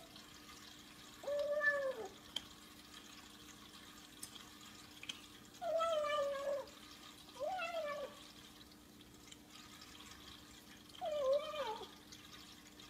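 Bengal cat meowing four times while it eats from its bowl; each call is short and rises then falls in pitch.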